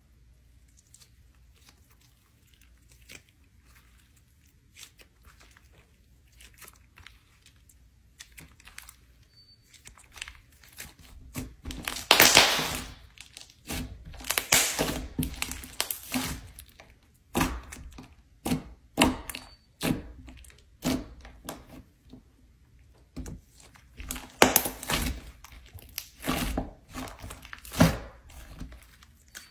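Thick green slime being squeezed, stretched and pulled apart by hand, making crackling, tearing sounds. Faint at first, then from about a third of the way in it comes in loud repeated bursts, one after another.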